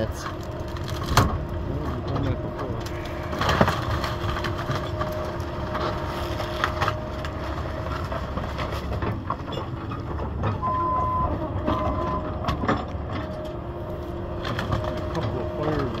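Excavator running with a steady whine while wood is crushed and broken, with scattered cracks and knocks, the loudest about a second and three and a half seconds in.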